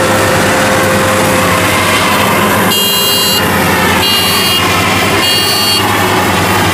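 Leloi WD115 Pro rice combine harvester's engine running steadily as the machine crawls on its tracks through deep mud. Three short high-pitched beeps sound about a second apart in the middle.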